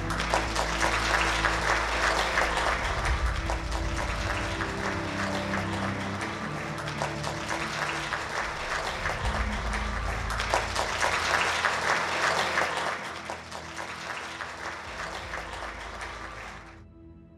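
Audience clapping over background music. The applause swells twice, thins out, then stops abruptly shortly before the end, leaving the music quiet and fading.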